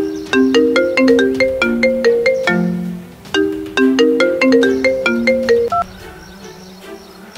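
Smartphone ringtone for an incoming call: a short melody of sharp, quickly fading notes repeating about every three seconds, cutting off about six seconds in when the call is answered.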